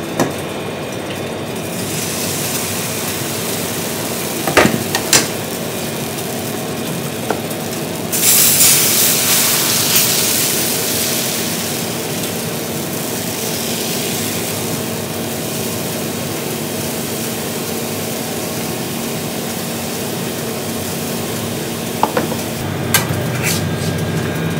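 Crepe batter sizzling on a hot round crepe griddle, with a loud hiss starting suddenly about eight seconds in that eases off over the next few seconds while the batter is spread with a wooden rake. A steady hum runs underneath, with a few sharp utensil knocks before the hiss and again near the end.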